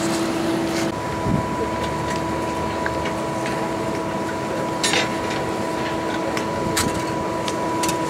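Large electric blower forcing air into a small homemade blast furnace: a steady rushing hum with a whine over it, the whine's pitch jumping higher about a second in. A few light clicks near the middle.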